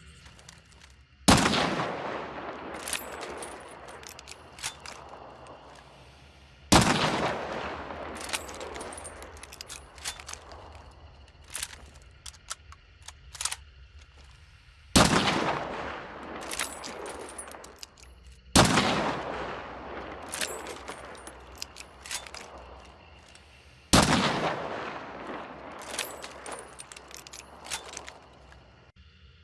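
Martini single-shot rifle fired five times at uneven intervals, each shot a sharp crack with a long echoing tail, with short clicks and rattles between shots.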